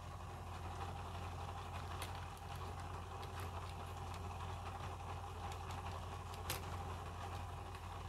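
A steady low background hum, with a few faint sharp clicks of the laptop's plastic screen bezel and parts being handled and pressed into place.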